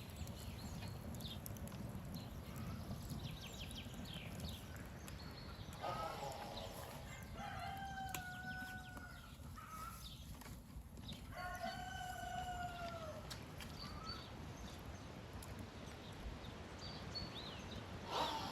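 A rooster crowing twice, each crow a long held call of about two seconds, with scattered faint high chirps.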